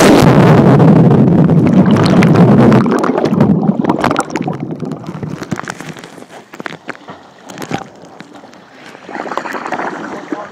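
A diver with the camera jumps into the sea with a sudden splash. A loud rush of bubbling, churning water follows for about three seconds, then fades into water sloshing at the surface, with a smaller swell of water noise near the end.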